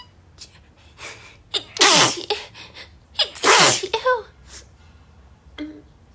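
A woman sneezing twice, about a second and a half apart, each sneeze loud and falling in pitch, with quick sharp breaths in around them.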